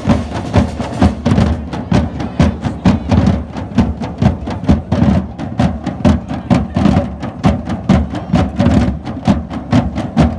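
Live drums and percussion playing a fast, driving rhythm: many sharp, stick-like clicks over regular low drum beats.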